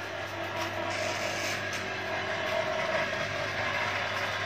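Small rice-husking mill's machinery running: a steady low hum under continuous, even mechanical noise.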